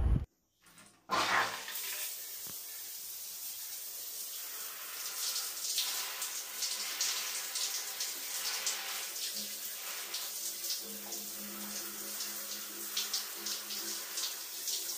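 Shower water running and splashing onto a smartphone held in the spray. The water starts about a second in, after a brief silence.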